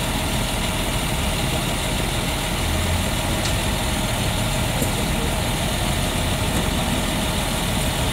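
Engine of a utility maintenance truck with a raised work platform, idling steadily.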